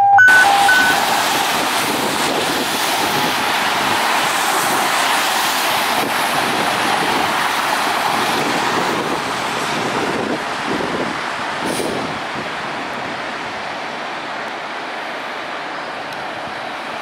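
A few short electronic beeps in the first second. Then a steady hiss of traffic on a wet road, tyres swishing as a car passes, fading somewhat toward the end.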